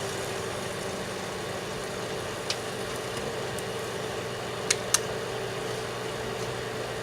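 Daewoo microwave oven running with a steady hum while an alarm clock burns inside it. A few sharp pops cut through it: one about two and a half seconds in, and two close together near five seconds.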